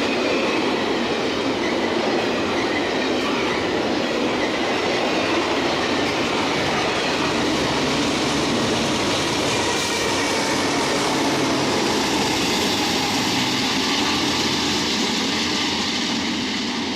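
Freight train cars rolling past: a loud, steady rumble and clatter of steel wheels on rails, with faint thin wheel squeals.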